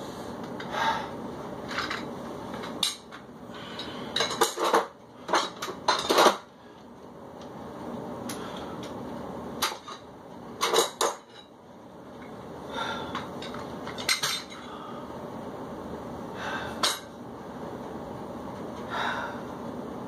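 Metal dumbbells clanking and clinking as they are handled and set down, with sharp metal-on-metal knocks in several clusters and the lifter's breathing between them.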